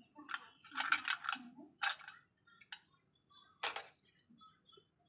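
Abalone shells clicking and clattering against a ceramic plate as they are set out by hand: a scatter of sharp clicks, densest about a second in, with the loudest one about three-quarters through.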